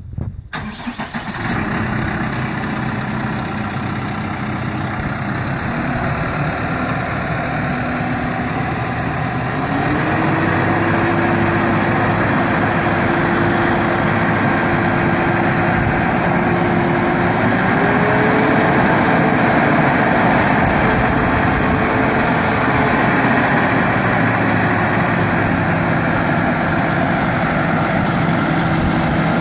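A 2017 Case IH Farmall 90C tractor's four-cylinder diesel engine running, first near idle and then revving higher and louder about ten seconds in. A thin whine rises with it and steps up in pitch again near eighteen seconds.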